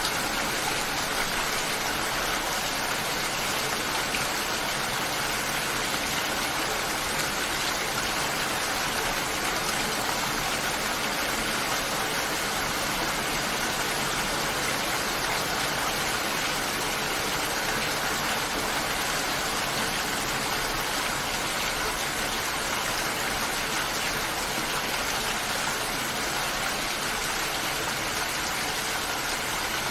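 Steady rain falling, a constant even hiss of water with no single sound standing out.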